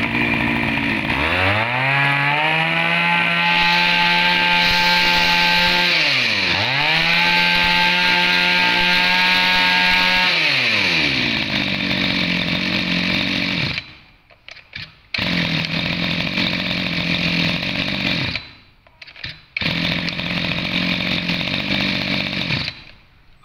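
Maruyama Maru 320 brush cutter's 32 cc two-stroke engine revved to full throttle twice, each burst held for several seconds with a quick drop between them, then let back down to idle. While idling, the sound drops out briefly twice and stops just before the end.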